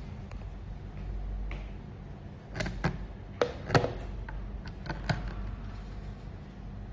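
Sharp plastic clicks and knocks as a DC barrel plug is pulled from one port of a portable power station and pushed into another, in a cluster of about seven over two and a half seconds, over a steady low hum.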